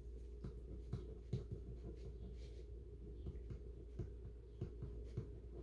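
Faint scratching and light taps of writing on paper at a wooden table, over a low steady hum.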